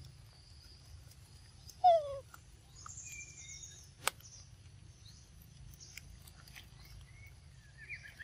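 A short animal call about two seconds in, falling in pitch, then a brief high trill around three seconds and a single sharp click about four seconds in, over a quiet outdoor background.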